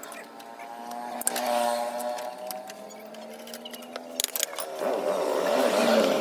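An engine running, its pitch wavering and then rising and growing louder in the last second or so, with scattered sharp clicks.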